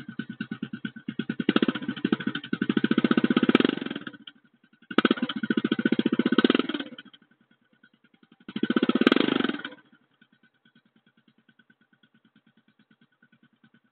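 Euro X125 motorcycle engine running through its original stock exhaust pipe. It idles with an even putter and is revved three times, the first rev the longest. It drops back to idle after the third rev, near the end.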